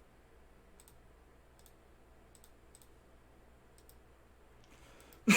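A few faint, scattered computer mouse clicks, each a single sharp tick, over low room noise. A short, louder sound comes near the end.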